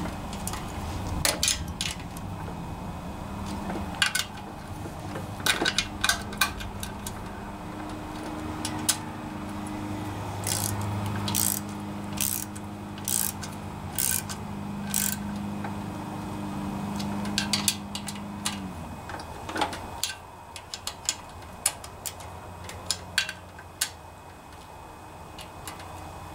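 Socket wrench ratchet clicking in short runs while the engine's valve cover bolts are snugged down by hand. A steady low hum sits underneath and stops about three quarters of the way through.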